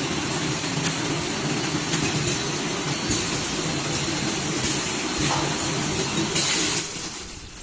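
Automatic valve bag filling packing machine running: a steady mechanical hum with a rushing noise. A short louder hiss comes near the end, and then the noise falls off sharply.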